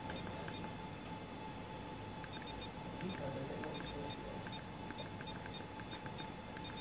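Buttons pressed one after another on the keypad of an ACTAtek 3 access-control terminal, each press giving a short faint beep, over a steady faint hum.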